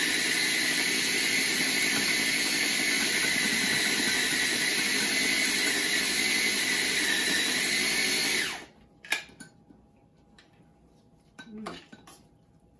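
Electric blender running steadily with a high whine, blending mango and ginger into a kimchi paste. It cuts off suddenly about two-thirds of the way in, followed by a few light clicks and knocks.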